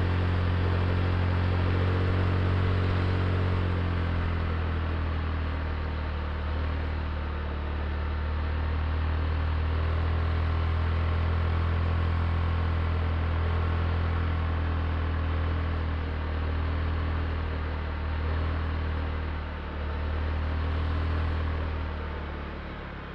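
Honda Click i scooter's single-cylinder four-stroke engine running under way while ridden, with a steady engine note over wind and road noise. The engine eases off briefly a couple of times near the end.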